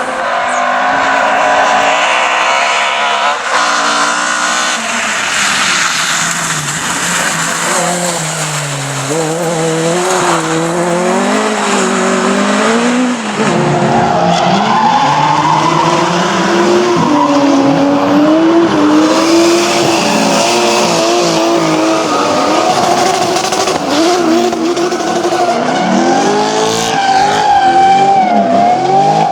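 Rally car engines revving hard, their pitch climbing and dropping again and again through gear changes as cars pass at speed, with tyre noise underneath.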